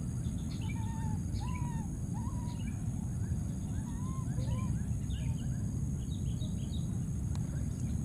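Many short, high, arching chirping calls repeated at irregular intervals over steady low background noise.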